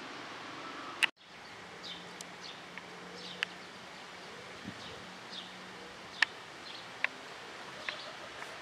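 Outdoor ambience of small birds chirping on and off in short, high calls and sharp chips over a steady background hiss. A click and a brief gap about a second in mark an edit.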